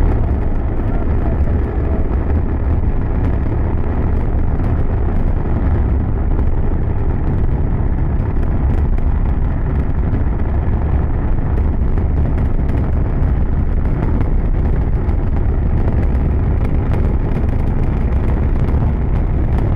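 Zefiro 40 solid rocket motor firing at full thrust: a loud, steady, deep rumble with a thin crackle of sharp pops throughout.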